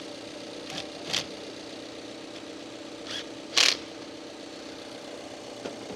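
Subaru Impreza's 2.0-litre flat-four engine idling steadily, with a few short scraping clicks of a wrench on the battery terminals, the loudest a little past halfway.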